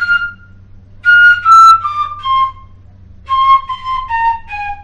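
Pífano, a Brazilian wooden transverse fife in C, playing a descending scale exercise. The last note of one four-note run is followed by two more runs of four separate descending notes, each run starting lower than the one before, with short pauses between runs.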